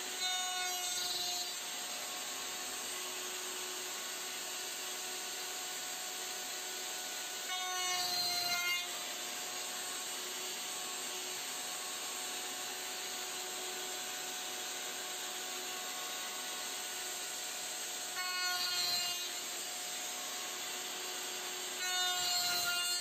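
Table-mounted router running steadily with a high whine, and four louder cutting passes of about a second each as the workpiece is pushed through the spinning bit to cut box-joint fingers in oak. The passes come near the start, around eight seconds in, around eighteen seconds in and at the end, and the motor's pitch sags slightly under each cut.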